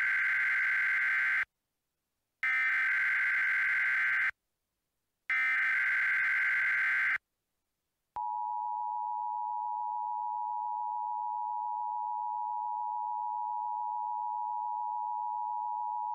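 Emergency Alert System alert opening: three harsh, buzzing bursts of the digital SAME header, each about two seconds long and a second apart. About eight seconds in, a steady alert tone takes over and holds for about eight seconds, signalling that an emergency message follows.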